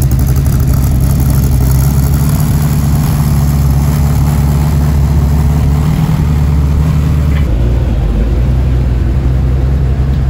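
Ford GT40's V8 engine idling loudly and steadily through its exhaust, its tone shifting slightly about seven and a half seconds in.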